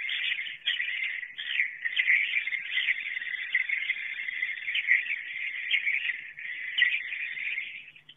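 Many swiftlets twittering together in a dense, unbroken chatter of high chirps. This is the night-roosting ('inap malam') call that swiftlet farmers use to draw birds into a swiftlet house. The chatter dies away just before the end.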